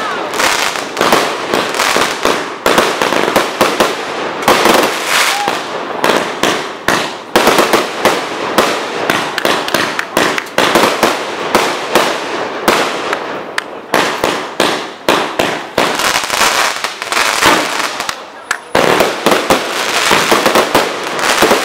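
Fireworks display: aerial shells bursting in quick succession, a dense run of bangs and crackles with a short lull about eighteen seconds in.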